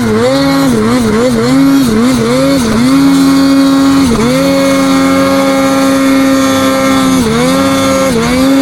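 Snowmobile engine at high revs, climbing uphill in deep snow. The throttle is blipped rapidly several times, then held high and steady, with two brief dips about four seconds in and near the end.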